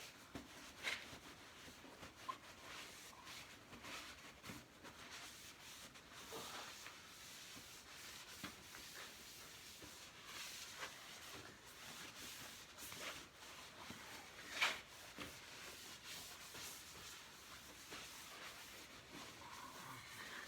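Faint, uneven rubbing and scratching of a rag wiping down a sanded, bondo-patched steel safe with carb cleaner to clear dust and oil before priming. A few light knocks are scattered through it, the sharpest about two-thirds of the way in.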